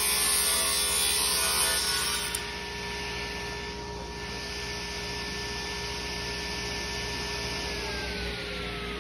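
Table saw ripping a thin strip off white oak stock, the cut ending about two and a half seconds in. The saw then runs on without load, and its pitch starts to drop near the end.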